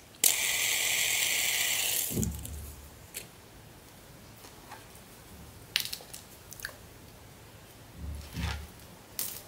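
Fidget spinner whirring steadily as it spins on its bearing for about two seconds, then stopping with a soft bump. After that come a few light clicks and low bumps of handling.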